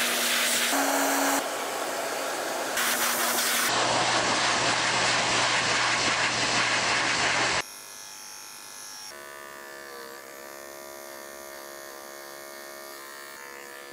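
Pet grooming hose dryer blowing steadily at high force, broken by several edits. About seven and a half seconds in it cuts off abruptly, and a cordless pet clipper's quieter, steady hum takes over.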